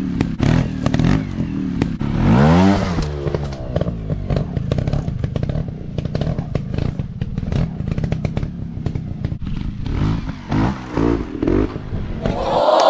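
Dirt bike engine running with sharp revs: one rising rev about two seconds in and a few short blips near the end, over a lot of clattering.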